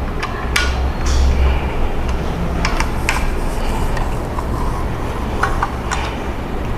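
Scattered light clicks and clinks of metal monitor-arm parts being handled as a nut is fitted onto a bolt at the VESA plate, over a steady low hum.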